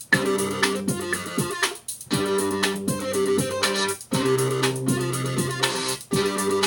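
Electronic music played on ROLI Blocks through the Noise app: electric-piano-like synth notes over a bass line, in repeating phrases about two seconds long, each broken by a short gap.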